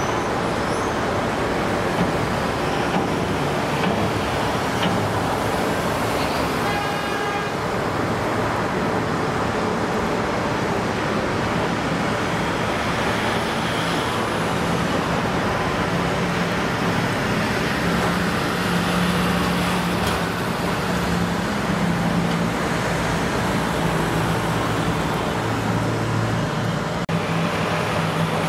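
Steady motor traffic noise, with a low engine hum that grows stronger in the second half.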